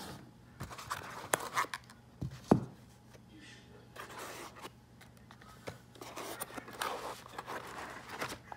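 Handling noise as a hand lifts a folded DJI Mavic Pro drone out of its foam-lined cardboard box. A few sharp knocks and clicks come in the first three seconds, the loudest about two and a half seconds in, followed by soft rustling and scraping.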